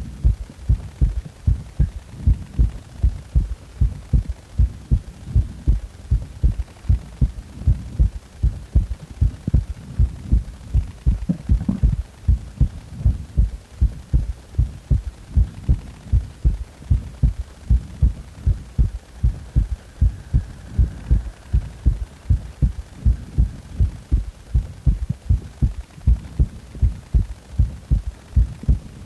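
Recorded human heartbeat, a steady rhythm of low thuds, with three heart sounds in each beat.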